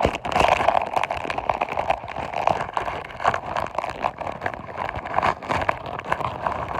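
Crackers being crushed up in the hand close to the microphone: a dense, continuous crackling of many small snaps.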